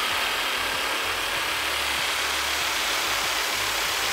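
Black+Decker KS900EKX 600 W jigsaw running at speed setting 4, its blade cutting a curve through thin plywood: a steady, even saw noise.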